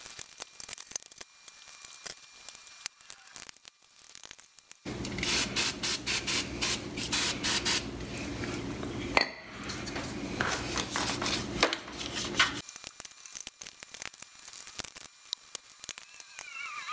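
Brush scrubbing dirt and grime off a motorcycle engine's cases in quick scratchy strokes. From about five seconds in until near the end, a louder spraying sound with a steady low hum joins the scrubbing, then stops suddenly.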